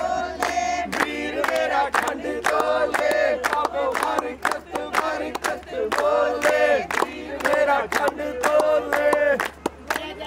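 A group singing a song together in chorus, accompanied by a steady rhythm of hand-clapping.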